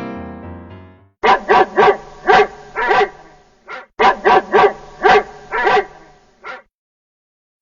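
A dog barking in two runs of quick barks, about five or six to a run, with a brief gap between them. Piano music fades out in the first second.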